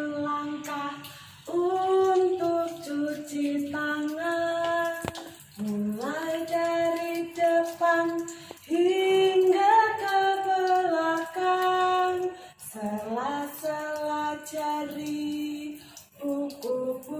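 A woman singing a song on her own, with no instruments, in phrases of held notes with short breaths between them.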